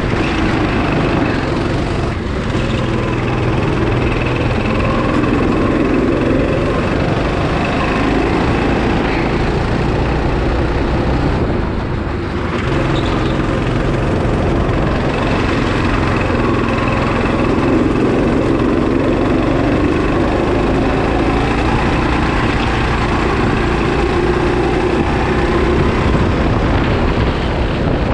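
Go-kart engine running hard under throttle, heard from on board the kart. The revs and loudness drop briefly twice, about two seconds in and again about twelve seconds in, as the throttle eases, then pick up again.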